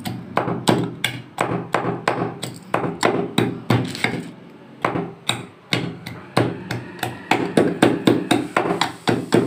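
Cloves, cinnamon and fresh ginger being pounded in a steel tumbler: a quick, even run of sharp knocks, about three a second.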